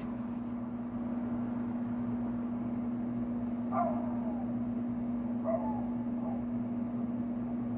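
A steady low hum over faint background noise, with two short high-pitched whines about four and five and a half seconds in.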